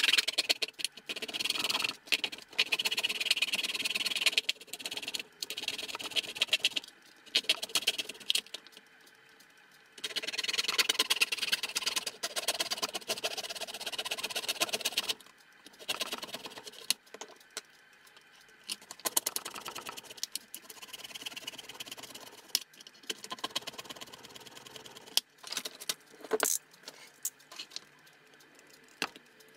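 Small hand saw cutting through a thin plastic toy-boat deck, played at three times speed: rapid rasping strokes in runs of a few seconds with pauses between. In the last several seconds only scattered clicks and scrapes remain.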